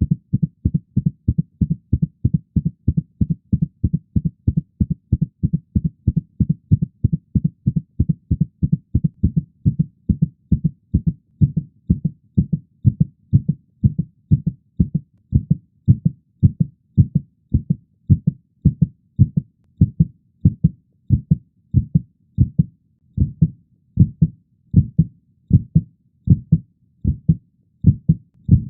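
Heartbeat sound effect: dull, low lub-dub thumps beating fast at first and gradually slowing down.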